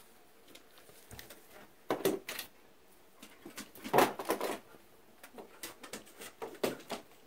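Scattered rustles, taps and knocks of a small vervet monkey scrambling about with a flashlight, in clusters about two seconds in, around four seconds in (the loudest) and near the end.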